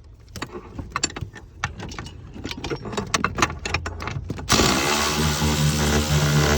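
Metal tools and hardware clicking and clattering in irregular knocks. About four and a half seconds in, a steady motor drone starts abruptly and keeps running.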